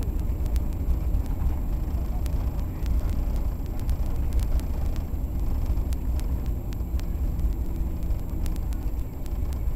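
Airliner cabin noise heard at a window seat, with the flaps extended low over the ground: a steady, deep rumble of engines and airflow. Scattered light clicks and rattles sound over it.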